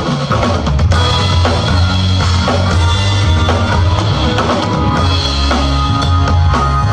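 Band playing a pop-rock song: drum kit with kick drum and a steady bass line, no singing.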